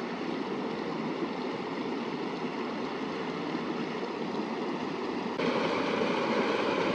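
Cold mountain stream rushing steadily, a continuous wash of water noise that jumps suddenly louder about five and a half seconds in.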